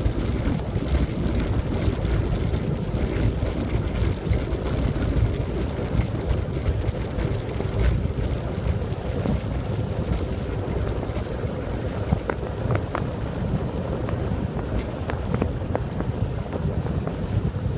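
Wind buffeting the microphone with tyre noise from a faired recumbent bicycle riding on asphalt at about 35 km/h, with a few light knocks from the road about twelve seconds in.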